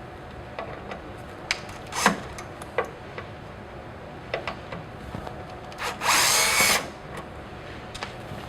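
Cordless drill-driver with a Torx bit running once, briefly, about six seconds in, backing out a screw that holds the rectifier power module. Before it come scattered light clicks and taps of screws and tools.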